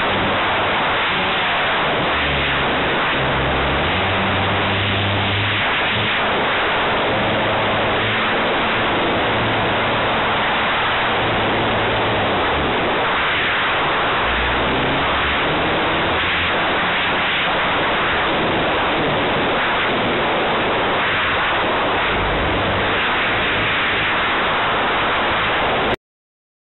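78-inch Extra 300 radio-controlled aerobatic plane in flight, heard through its onboard camera: engine and rushing air blend into a steady, loud, wind-buffeted roar. It cuts off suddenly near the end.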